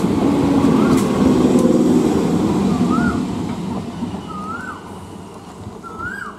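Electric multiple unit local train running past close by: a loud rumble of wheels on rail that fades after about three seconds. A bird repeats a short call that rises and drops back, about every second and a half, through the second half.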